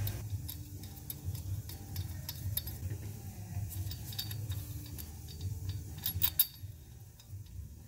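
Light metallic clicks and clinks of hand tools and parts being worked under a truck, a cluster of louder ones a little after six seconds in, over a steady low hum.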